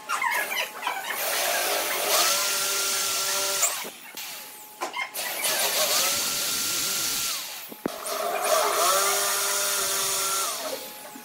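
Handheld electric drill with a twist bit boring dowel holes into a pine frame corner. It runs three times, each run a whine that rises as the motor spins up and drops away as it stops.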